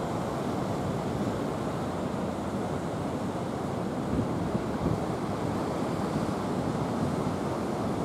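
Surf washing in over a rocky shore in a rough, whitecapped sea, a steady rush, with gusts of wind buffeting the microphone a few times.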